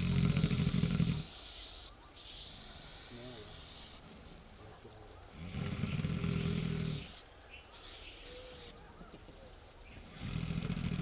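A young Sri Lankan elephant gives three low rumbles, each lasting about a second, roughly five seconds apart.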